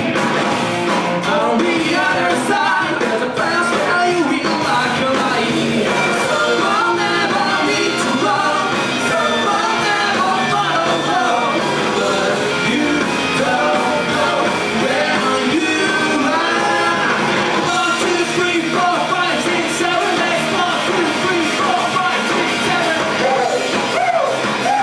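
Rock band playing live, a singer's voice over electric guitars, bass and drums.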